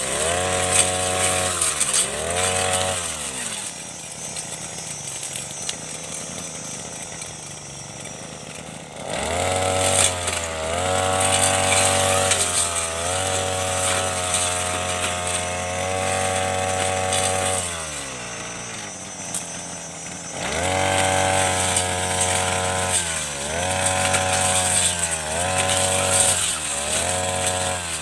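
Backpack brush cutter engine revving hard as its blade cuts through dense shrubs, dropping back to idle between cuts. It idles for several seconds about a third of the way in and again for a couple of seconds later on, runs at high revs for long stretches in between, and near the end revs up and down in quick bursts.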